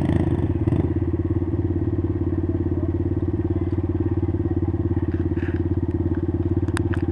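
Honda TRX90's small single-cylinder four-stroke engine idling steadily close by, with a fast even pulse. Two sharp clicks near the end.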